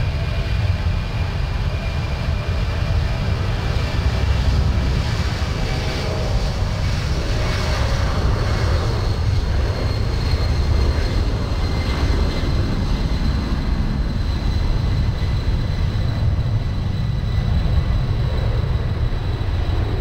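Boeing C-17 Globemaster III's four turbofan jet engines running, a loud steady rumble with a faint high whine over it.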